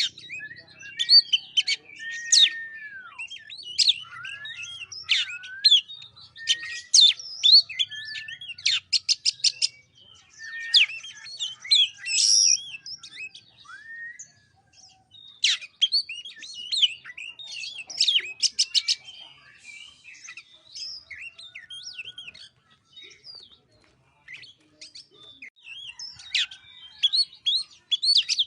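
Oriental magpie-robin (kacer) singing a varied song of whistled notes, down-slurs and rapid trills in short phrases with brief pauses. It goes quieter for a few seconds past the middle, then picks up again near the end.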